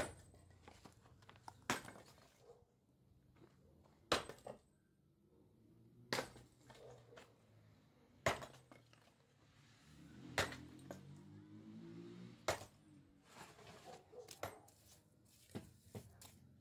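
Sharp clinks of a metal tool striking stone, evenly spaced about one every two seconds, with lighter taps in between.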